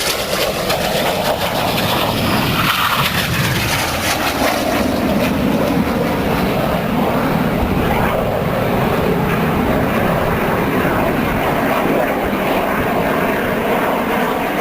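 Jet noise from the Red Arrows' Synchro pair of BAE Hawk T1 trainers passing, their Rolls-Royce Adour turbofans heard as one loud, steady rushing sound. It builds over the first few seconds, and the high hiss fades from about five seconds in as the jets draw away.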